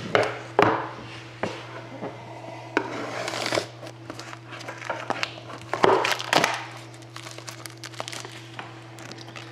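Plastic shrink wrap being cut and pulled off a sealed box of trading cards: crinkling plastic with several sharp rustles, the loudest about six seconds in, over a faint steady hum.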